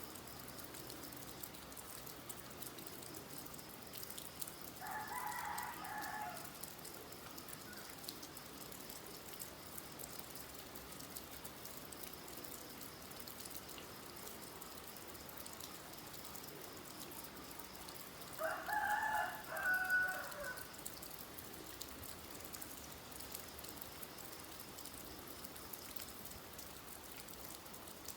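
Steady light rain with fine drip ticks. A rooster crows twice, about thirteen seconds apart, each crow lasting a second or two.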